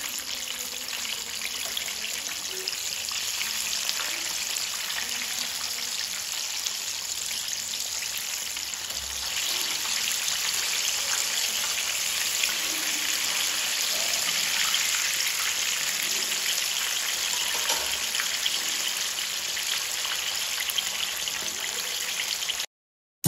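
Breaded chicken pieces deep-frying in hot oil: a steady sizzle with crackling, growing louder about nine seconds in. It cuts off suddenly just before the end.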